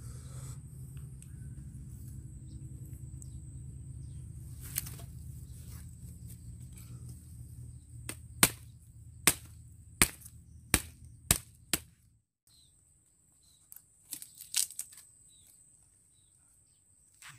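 A run of about six sharp knocks, roughly two-thirds of a second apart, over a low steady rumble that cuts off a little past halfway. A steady high thin whine runs throughout, and a few fainter clicks come near the end.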